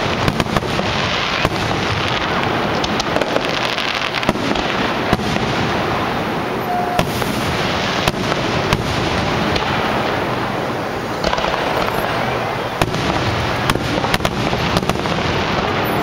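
Aerial fireworks display: a continuous, dense barrage of shell bursts, with many sharp bangs in quick succession over a steady rumble.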